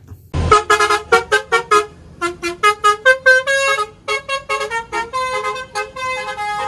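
Toy city bus's electronic sound chip playing a fast tune of short, horn-like beeps, about four or five notes a second, after a single thump about half a second in.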